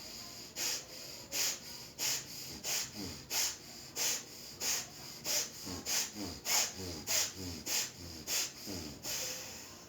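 Rapid, forceful bellows breathing through one nostril (surya bhastrika, right-nostril bhastrika pranayama). Each inhale and exhale is an audible, sharp rush of air through the nose, about two strokes a second, stopping shortly before the end.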